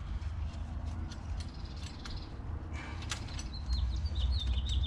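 Scattered clicks and clinks of hand tools and metal parts being handled, then, past the middle, a quick run of short high chirps.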